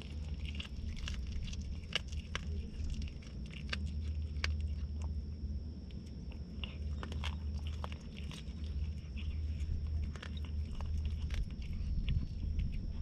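A cat chewing and crunching a raw fish, with many irregular small crunches and clicks over a steady low rumble.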